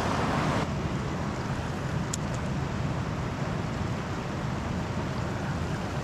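Steady, even rush of water from a waterfall below a dam spillway. It is brighter for the first half second, and a single sharp click comes about two seconds in.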